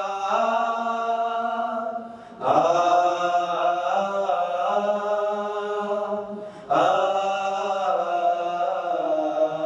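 Male vocal group singing a wordless interlude a cappella in held harmony, in three long phrases with short breaks between them.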